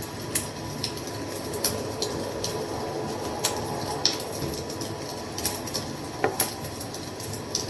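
Wood fire crackling: irregular sharp pops and snaps over a steady rushing hiss of the flames.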